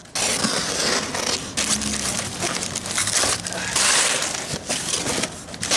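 Cardboard packing being pulled out, crumpled and shoved aside by gloved hands while a shipping box is unpacked. It comes as a series of rustles and scrapes, loudest about four seconds in.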